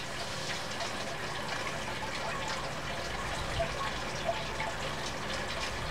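Sodium hydroxide (lye) granules streaming from a plastic bottle into a glass measuring cup: a steady trickling hiss with faint scattered ticks as the granules land.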